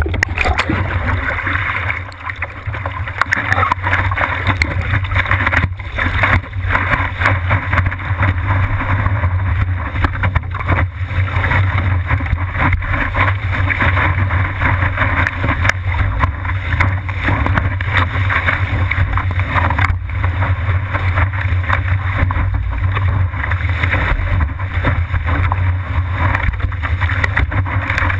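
Water rushing under a 10-foot longboard surfboard as it glides along a breaking wave, heard from a camera on the board's nose, with wind buffeting the microphone: a loud, steady rush.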